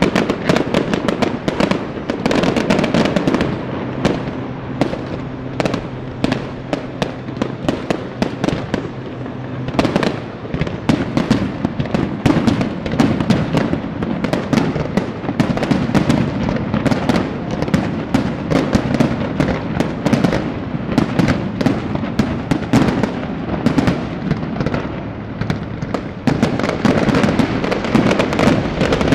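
A fireworks display going off: a dense, rapid barrage of bangs and crackles.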